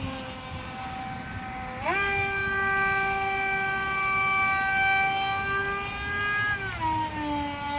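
Electric RC plane's motor and propeller whining in flight. About two seconds in, the throttle opens and the pitch rises sharply, holds steady, then drops back near the end as the throttle comes off.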